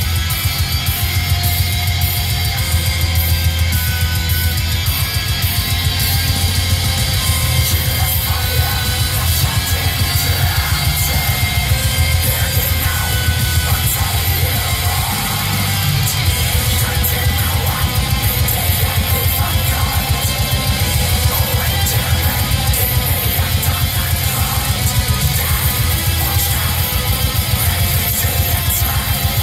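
Black metal music: distorted guitars over fast, steady drumming.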